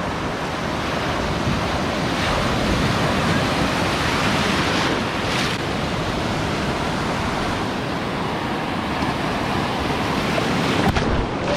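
Ocean surf: waves washing and breaking in a steady loud rush.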